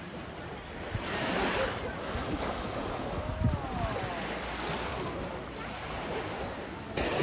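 Small waves washing on a sandy shore, swelling and easing, with wind buffeting the microphone and faint voices of bathers. The sound steps up suddenly near the end.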